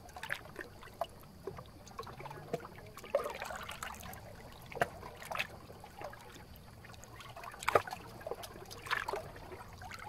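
Small sea waves lapping at the shore, with irregular splashes and trickling water; the loudest splash comes about three quarters of the way through.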